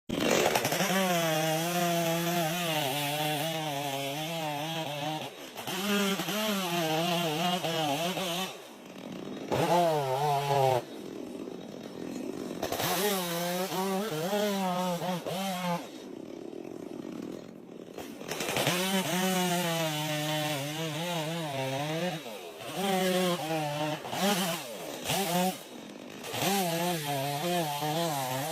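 Chainsaw engine running under load while cutting wood, its note wavering up and down, easing off several times between stretches of cutting.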